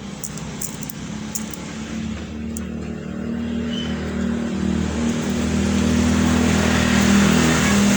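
A motor vehicle's engine running steadily and growing louder over several seconds.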